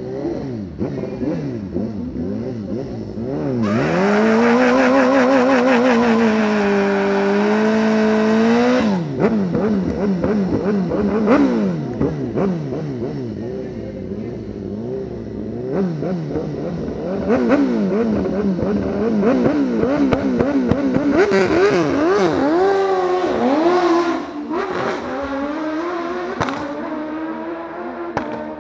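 Harley-Davidson V-twin motorcycle engine revving hard, its pitch swinging up and down again and again, in two loud stretches a few seconds into the sound and again past the middle.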